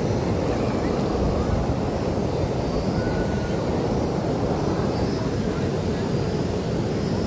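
Steady low rushing of water, even and unbroken.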